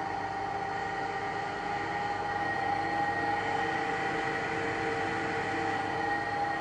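2006 Runmaster RUN 330x1000RR precision tool room lathe running with the carriage on power feed at its maximum feed rate: a steady gear whine with several held tones over a mechanical hum.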